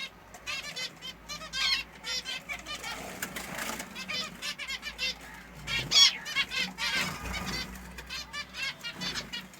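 A colony of small finches chirping continuously in quick, high, short calls, with a brief flutter of wings about three and a half seconds in.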